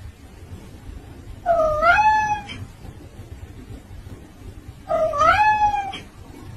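A cat meowing twice, about three seconds apart. Each meow lasts about a second and dips, then rises in pitch.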